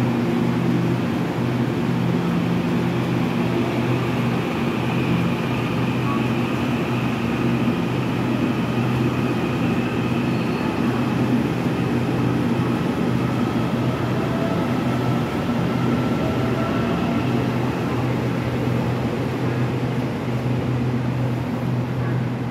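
TEMU2000 Puyuma tilting electric multiple unit pulling out of the station and running past, a steady low hum with faint whining tones that glide slowly in pitch as it gathers speed.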